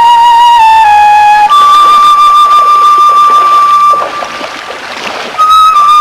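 Soundtrack music: a single melodic instrument playing a slow line of long held notes, a step down about a second in, a higher note held for over two seconds, a short pause about four seconds in, then notes stepping downward near the end.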